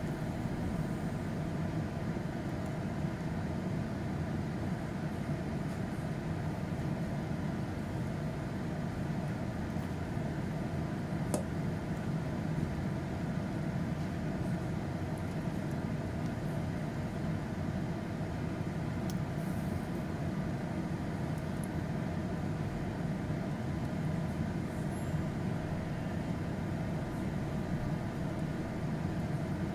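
Steady low rumble of a gas stove burner with water boiling in the pan beneath a plate of okra set over it to steam. A few faint clicks of plastic tongs against the plate.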